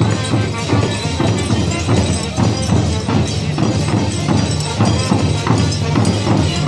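Street band playing folk music on trumpets and clarinet over a steady percussion beat of about three strokes a second.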